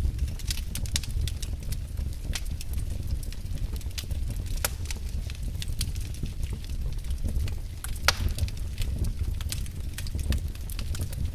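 Wood fire burning in a fireplace: a steady low rumble of the flames under frequent sharp crackles and pops, with one louder pop about eight seconds in.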